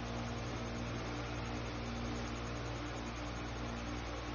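Steady hum and hiss at an even level, with no distinct events.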